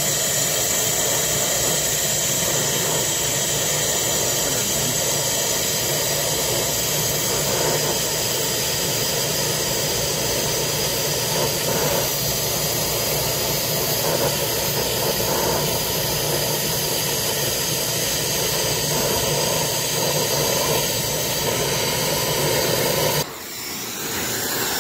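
High-flow nitrogen rushing backward through a refrigeration unit's multiple-orifice metering header and out of the open liquid line, a loud steady hiss with faint whistling tones, while a brazing torch heats the orifices; the purge is blowing wax and broken-down oil debris out of restricted orifices. The hiss drops sharply about a second before the end.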